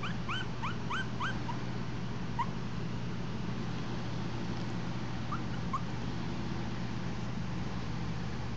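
Maltese puppies whimpering during rough play: a quick run of five or six short, high squeaky whimpers, one more about two and a half seconds in, and two more a little past halfway. A steady low hum runs underneath.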